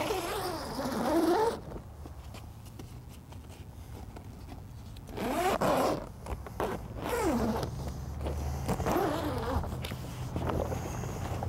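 Heavy-duty number 10 zipper on a tent's fabric door being unzipped in four pulls: one right at the start, then three more in quick succession from about five seconds in. Each pull is a rasp that sweeps in pitch.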